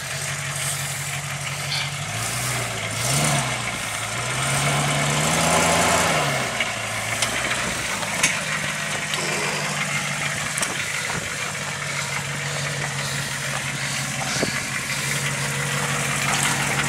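Land Rover Discovery 2's 4.0 V8 engine working at low revs as the truck crawls over rocks, revving up and back down twice in the first six or so seconds, then running steadily. A couple of sharp clicks come near the middle.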